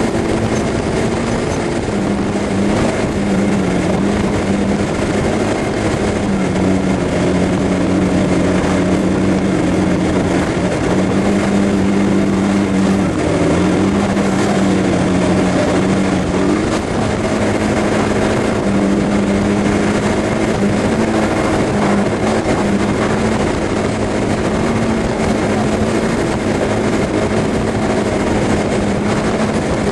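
Suzuki Burgman 400 scooter's single-cylinder engine droning steadily at motorway speed under a constant rush of wind, the hum dipping briefly a few times.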